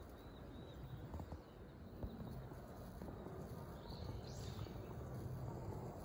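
Faint outdoor background: a steady low rumble, a couple of light clicks, and one short high rising chirp about four seconds in.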